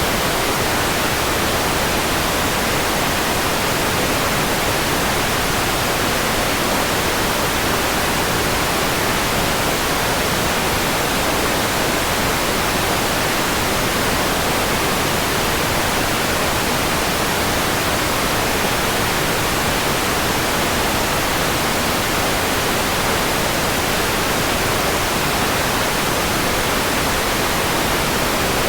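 Steady, unchanging white noise: an even hiss spread across all pitches, with no breaks or events.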